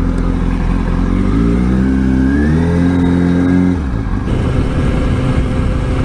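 Kawasaki ZX-6R inline-four sport bike engine accelerating, its pitch rising for a couple of seconds. About four seconds in it gives way to the steady engine and wind noise of riding.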